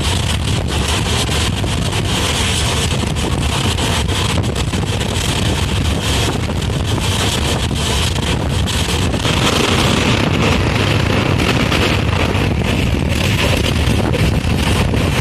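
Express passenger train running at speed, heard through an open carriage window: a steady rumble of wheels on the rails, with wind buffeting the microphone.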